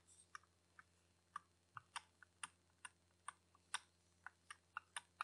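Lego plastic parts clicking and tapping as they are handled and fitted, a string of light, irregular clicks, about three a second.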